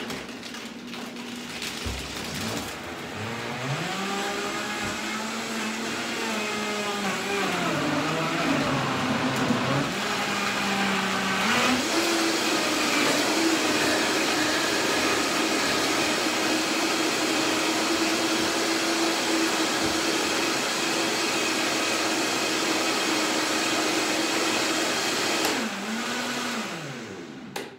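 High-powered countertop blender running on a green smoothie of greens, fruit and yogurt. Its motor pitch wavers for the first ten seconds or so while the chunky mix churns, then jumps to a steady higher pitch once the contents are blended smooth. It is switched off near the end and winds down.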